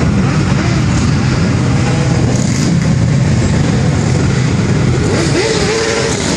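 A large group of sport motorcycles ("bullet bikes") running and revving as they ride past together, a loud, dense engine noise with many engine pitches rising and falling over one another.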